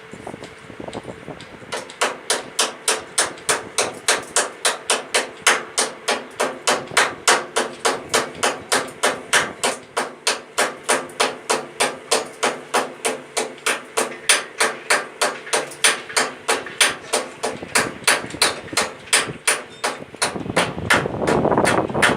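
Hammer striking steel over and over, about three ringing blows a second, on the grain-tank auger of a combine under repair. Near the end the blows give way to a rougher burst of noise lasting about two seconds.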